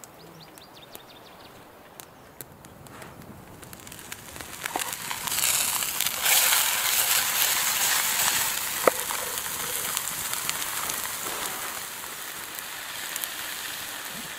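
Trout frying in a pan over a campfire: a steady sizzle builds up about four to five seconds in and stays loud, with scattered crackles and one sharp pop near the middle. Before the sizzle comes in there are only quiet outdoor sounds with a few faint chirps.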